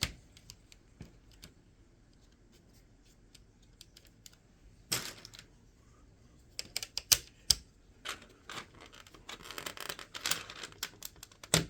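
Plastic Lego bricks being handled: scattered sharp clicks, a brief scrape about five seconds in, then a busy run of clicking and rattling in the second half.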